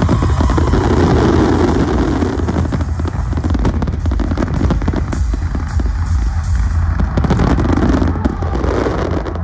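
Fireworks display: many shells bursting in quick succession, a dense, continuous crackling over a heavy low rumble of booms.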